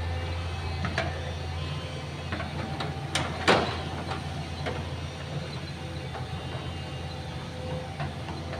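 Excavator's diesel engine running steadily, with a few sharp knocks and clanks over it, the loudest about three and a half seconds in.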